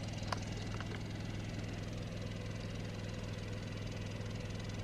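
Cummins Onan QG2500i propane inverter generator running steadily, heard from about 50 feet away as an even hum, mostly its exhaust tone.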